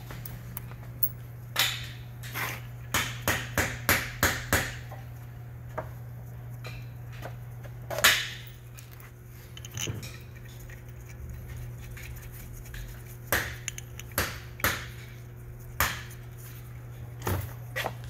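Sharp metal clicks and clinks as bolts are set into a submersible pump's bearing cover by hand: a quick run of them about two seconds in, a loud single click near the middle and scattered ones later. A steady low hum runs underneath.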